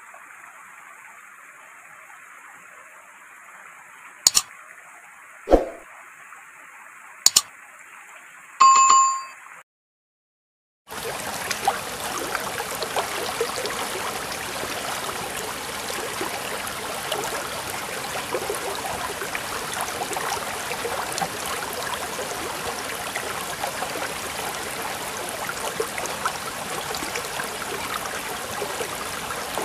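A small stream rushing and splashing over rocks, a steady rushing with fine crackle, which starts after about a second of total silence roughly ten seconds in. Before the silence there is only a thin hiss with three sharp clicks and one short bell-like ding.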